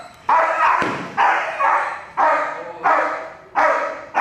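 Young protection dog barking repeatedly at a decoy, roughly two barks a second: a sharp, loud onset to each bark that quickly fades.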